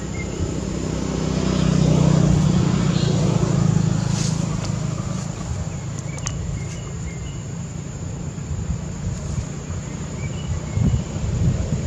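Low engine hum of a passing motor vehicle, swelling to its loudest about two to four seconds in and then easing off.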